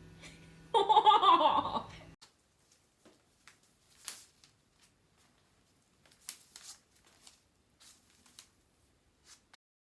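A person laughs briefly about a second in, followed by faint scattered clicks and taps.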